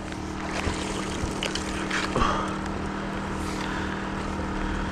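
A steady low mechanical hum, engine-like, under a constant hiss, with a few light knocks and scrapes as a fishing magnet and rope are hauled up onto a stone riverside wall.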